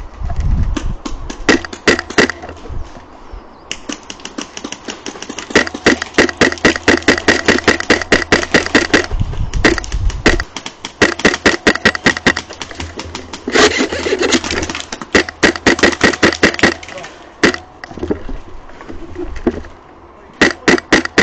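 Airsoft guns firing in rapid full-auto bursts, about ten sharp shots a second, in several strings of one to three seconds with short pauses between them.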